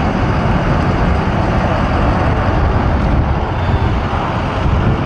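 Steady road noise of a vehicle driving on pavement: a loud, unbroken rumble and hiss that cuts in suddenly.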